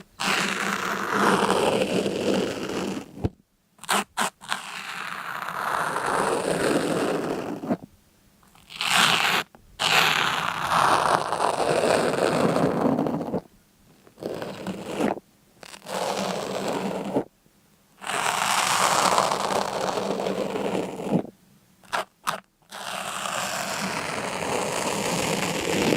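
A series of long scraping strokes, each lasting a few seconds, separated by short pauses and a few quick clicks.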